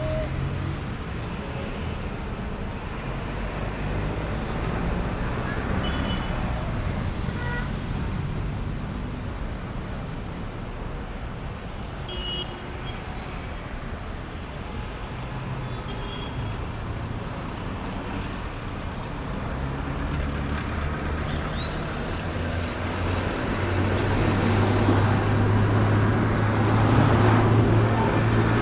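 Street traffic: a continuous rumble of cars passing. Near the end a heavy vehicle's low engine drone builds up and grows louder, with a short hiss as it arrives.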